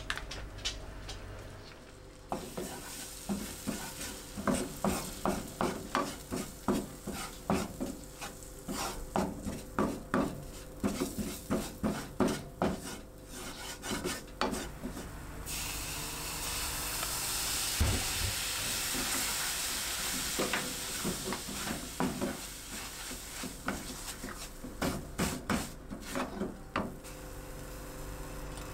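Wooden spatula scraping and stirring a flour roux in a nonstick frying pan, in quick repeated strokes, as the base of a white sauce is cooked. A steady sizzle from the pan runs for several seconds in the middle.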